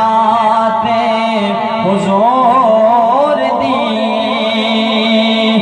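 A man singing a naat into a microphone, drawing out long held notes with wavering, ornamented turns in pitch and no clear words.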